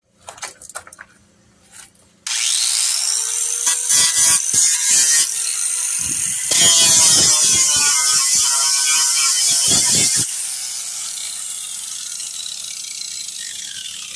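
Ryobi angle grinder started about two seconds in, its disc grinding into the fibreglass of a boat's bottom, loud and uneven as it bites. About ten seconds in it is lifted off and runs on more quietly, its pitch slowly falling as it winds down.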